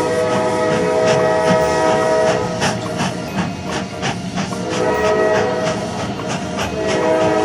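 A held horn-like chord of several notes sounds for about two seconds, stops, and returns a couple of seconds later, over a rapid, regular clicking.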